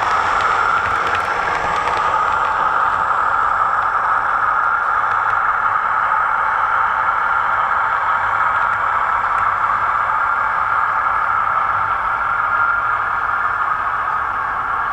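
00 gauge model multiple unit running on the track: a steady whir, with light clicking over the rails in the first couple of seconds as a unit passes close.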